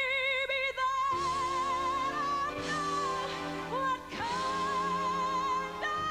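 A woman singing a ballad in a strong belting voice, a series of long held high notes with wide vibrato, over sustained instrumental accompaniment.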